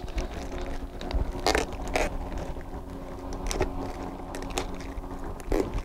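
Rubber go-kart racing tire being forced by hand over the lip of its wheel rim: scattered scraping, crunching rubber and a handful of short knocks as the second side of the bead is worked on.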